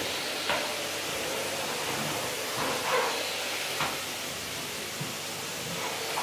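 A pink Numatic Hetty canister vacuum cleaner running with a steady hiss as its floor tool is pushed over bathroom tiles, with a few sharp knocks as the head bumps the floor.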